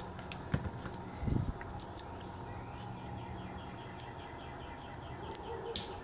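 Faint scattered clicks and scrapes of a lock pick working the pins inside a brass EY padlock held under tension, with a soft bump about a second in.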